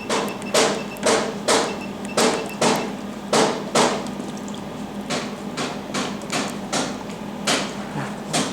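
Jewelry laser welding machine giving sharp, regular clicks, about two a second, over a steady low hum.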